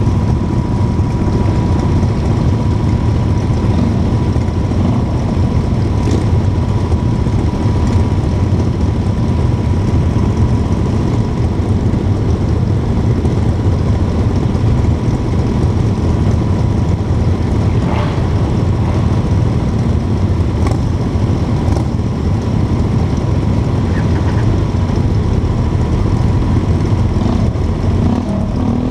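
A pack of motorcycles, cruisers among them, idling together at a crawl: a loud, steady low engine rumble with no revving.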